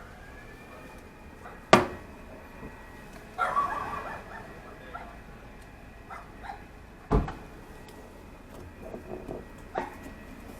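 Two sharp knocks about five seconds apart, with a short burst of clatter between them and a few small clicks near the end.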